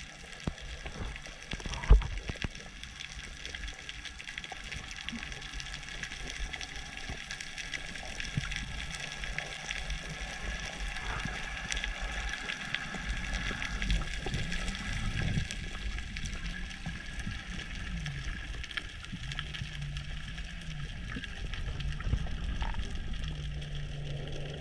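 Water noise picked up by a camera in the sea: a steady wash with gurgling, a low hum that wavers up and down in pitch through the second half, and a single sharp knock about two seconds in.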